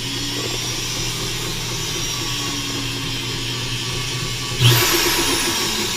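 Half-inch Milwaukee electric drill running steadily, belt-driving a sewing machine's mechanism in place of its hand wheel. About four and a half seconds in it suddenly gets louder, with a high whine that falls in pitch.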